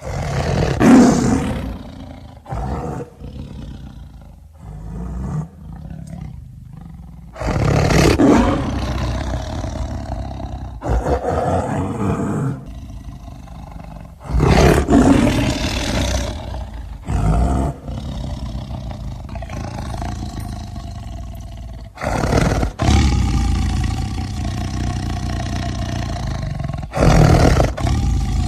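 Tiger roars and growls edited together as a sound-effects sequence: several loud roars spaced several seconds apart, with lower growling in between and abrupt cuts from one clip to the next.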